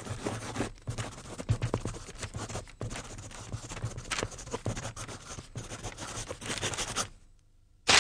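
Pencil scratching on paper in quick, irregular strokes as it draws and writes. It stops about a second before the end.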